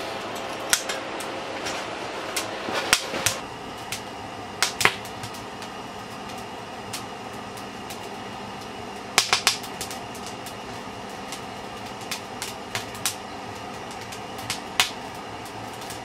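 Freshly lit wood fire in a small sheet-steel tent stove, crackling and popping irregularly, with sharp cracks clustered about three seconds in and again near nine seconds, over a steady fan-like whir.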